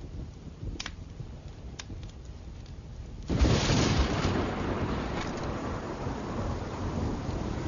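Thunderstorm: a low rumble with a few sharp crackles, then a sudden loud thunderclap a little over three seconds in that rolls on and slowly dies away.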